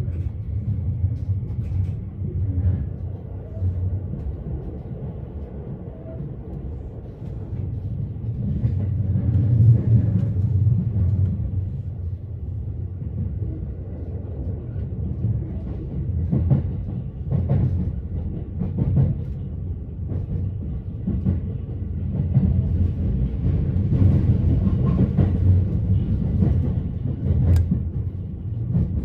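Running noise heard inside the cabin of the Haruka limited express train: a steady low rumble of wheels on rails that swells and eases a few times, with a few sharp clicks over the track.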